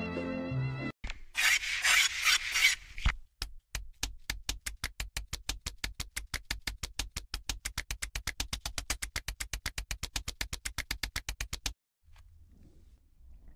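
A rapid, even run of sharp clicks, about eight a second, lasting several seconds and cutting off suddenly near the end. It comes after a brief burst of rasping noise and the last second of string music.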